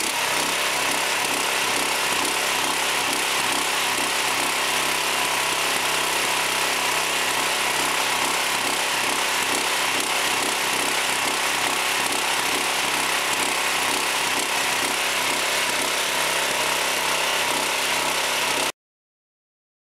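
A machine running steadily, with a fast even rhythm under a broad mechanical noise; it cuts off suddenly near the end.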